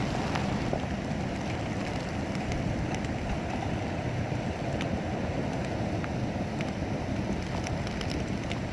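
Typhoon rain pouring steadily onto a flooded road, with scattered drop ticks and the storm wind rumbling on the microphone.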